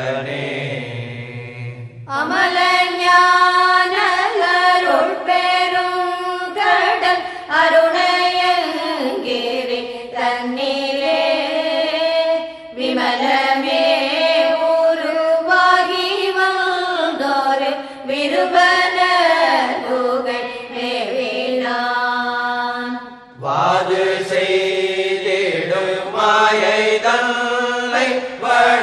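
Devotional chanting in Tamil: a voice sings long, gliding melodic phrases over a steady low drone, pausing briefly twice between phrases.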